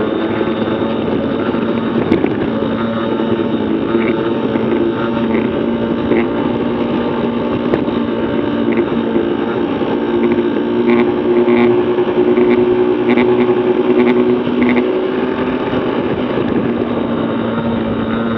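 Yamaha PW50 minibikes' 49 cc two-stroke single-cylinder engines running hard at a steady pitch, heard from a handlebar-mounted camera. The note swells louder about two-thirds of the way in.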